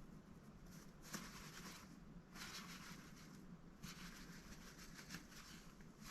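Mallard duck preening: faint bouts of scratchy feather rustling, each under a second long, coming three or four times.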